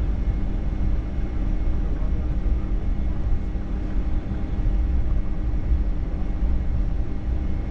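Steady low cabin rumble inside a Boeing 757-200 on the ground after landing, with a faint steady hum above it.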